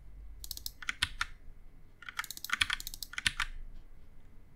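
Computer keyboard typing: a short run of keystrokes about half a second in, then a longer run from about two seconds to three and a half seconds.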